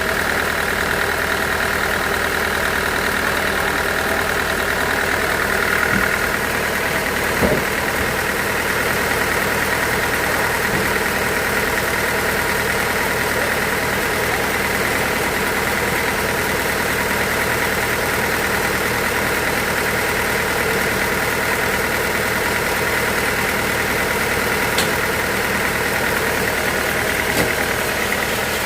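Sawmill machinery running steadily with an even, engine-like hum, and a few short knocks about six, seven and a half, and twenty-five seconds in.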